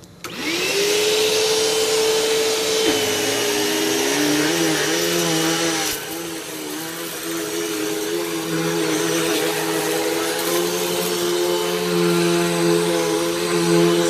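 Hoover Elite Rewind upright vacuum switched on, its motor spinning up to a steady tone within about half a second. About three seconds in the pitch drops, and it keeps running with a slightly wavering pitch as it is pushed over a rug.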